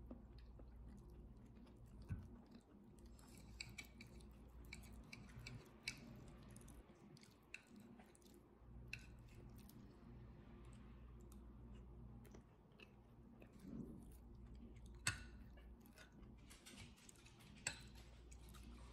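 Faint eating sounds: a metal knife and fork cutting through a baked potato and clinking and scraping on a ceramic plate, in scattered sharp clicks, with soft chewing between.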